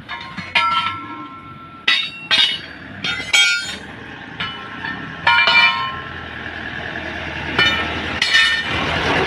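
Sharp metal clanks, about seven, several leaving a ringing steel tone behind them: a truck wheel's steel lock ring and tyre lever being handled and knocked against the rim.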